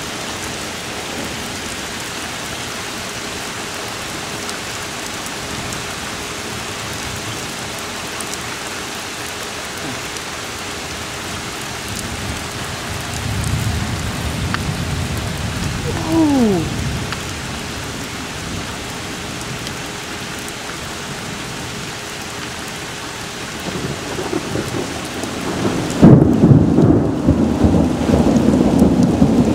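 Heavy rain from a thunderstorm falling steadily. A rumble of thunder comes about halfway through, with a short falling tone in it, and a louder, longer thunder rumble builds over the last few seconds.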